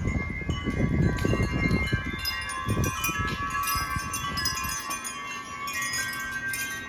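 Several wind chimes ringing in gusty wind, many overlapping tones sounding together. A low rumble of wind on the microphone runs under them and dies away about five seconds in.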